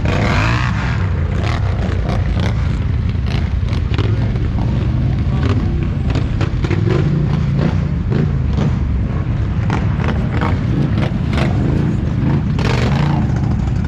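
ATV engine running steadily, with many short knocks and rattles over the low rumble.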